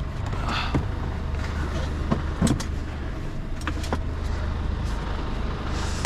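Mercedes Actros diesel truck engine idling with a steady low hum, with a few scattered clicks and knocks from handling in the cab.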